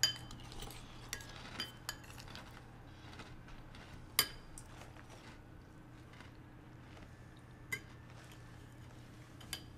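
Scattered clinks of cutlery against dishes, some ringing briefly, with one louder clink about four seconds in.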